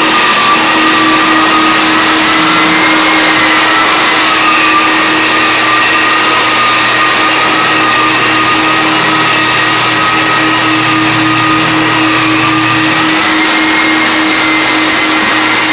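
Floor edger sander and its dust-extraction vacuum running steadily while edge-sanding an old hardwood floor: a loud, even motor noise with a high whine that drifts slightly in pitch.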